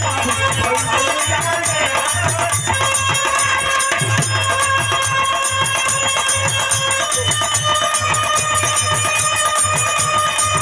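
Instrumental passage of Bhojpuri birha folk music: a held melody line over a steady low drum beat and fast, busy high percussion.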